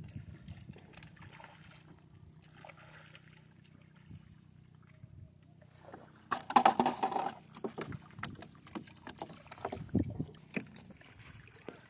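Quiet water sounds around a person standing in a lake, then a loud burst of knocking and splashing about six seconds in as a caught fish is dropped into a wooden canoe. Scattered knocks and splashes follow as the gill net is lifted dripping from the water.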